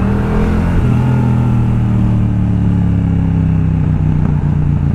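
Yamaha MT-07's parallel-twin engine through a full Akrapovič exhaust with its baffle fitted, accelerating to overtake. The revs climb, drop with a gear change about half a second in, then hold fairly steady and ease off slightly.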